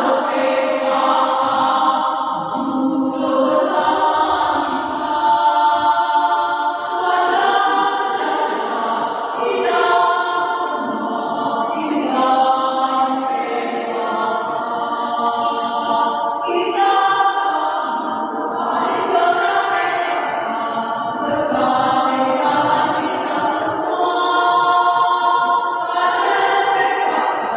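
Choir singing, many voices together, in a steady, unbroken passage of a song.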